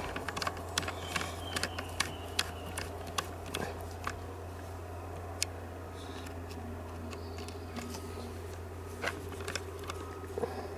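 Light metal clicks and scrapes of a screwdriver turning and seating the screws in a chainsaw's oil pump housing, coming in scattered bursts, with a few more near the end. A steady low hum runs underneath.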